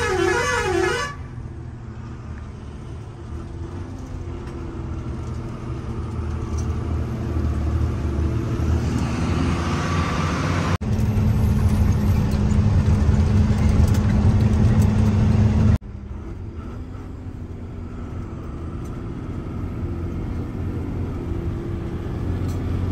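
Truck engine running on the road, a steady low rumble in three stretches that cut off abruptly about 11 and 16 seconds in; the middle stretch is the loudest. A wavering, tune-like horn sounds during the first second.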